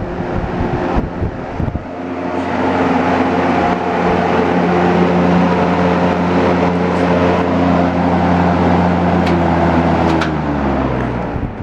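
GE F11W22 box fan running on high speed, a bit noisy: rushing air buffets the microphone at first, then from about two seconds in a steady motor hum with several tones comes through. Near the end the tones drop in pitch and fade as the fan is switched off and spins down.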